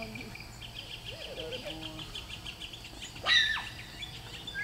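Crickets chirping in a fast, even, high-pitched pulse, then a short, loud, high-pitched squeal that sweeps up and falls away about three seconds in.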